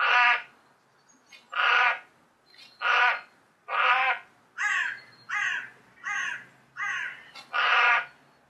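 Crow cawing repeatedly while grappling with a falcon: about nine caws, roughly one a second, shorter and closer together in the middle.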